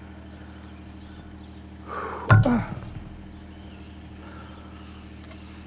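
A steady low machine hum, with a sharp knock about two seconds in, followed at once by a short falling grunt.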